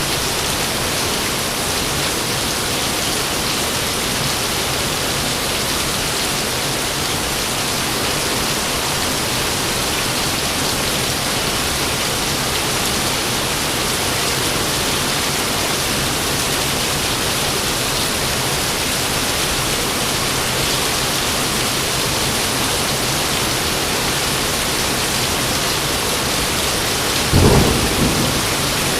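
Steady heavy rain hissing, with one sudden loud clap of thunder near the end that trails off in a short rumble.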